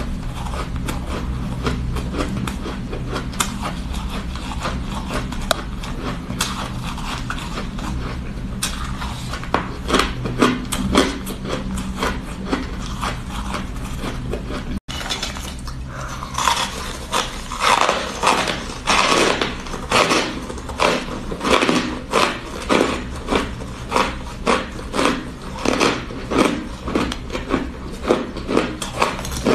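Close-up chewing of soft, powdery shaved ice, with many crisp crunches. After a sudden break about halfway, the crunching settles into a steady rhythm of about one and a half bites a second.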